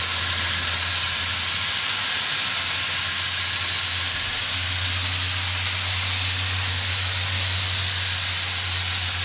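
Model railroad diesel locomotive and its hopper cars running steadily along the layout track, a continuous low hum with a hiss above it that grows a little stronger about halfway through.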